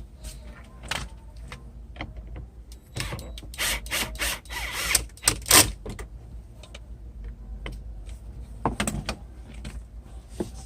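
Clicks, knocks and scraping of car door trim parts being handled and fitted back on, busiest in the middle.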